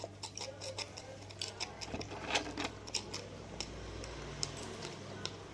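Crunchy puffed snacks being eaten: a run of sharp, irregular crunches and clicks, over a steady low hum.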